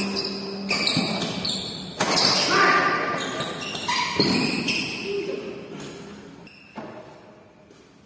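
Badminton rally: about four sharp racket strikes on the shuttlecock a second or two apart, echoing in a large hall. Brief high squeaks of shoes on the tiled floor and players calling out come between the strikes.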